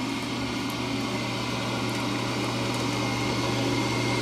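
Ammco 7000 disc brake lathe running: a steady electric motor and gearbox hum with a thin high whine, slowly growing a little louder.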